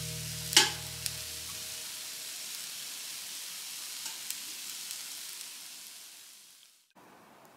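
Food sizzling in a Silvercrest 2-in-1 tabletop grill with hot pot: a steady hiss that fades out near the end, with one sharp click about half a second in.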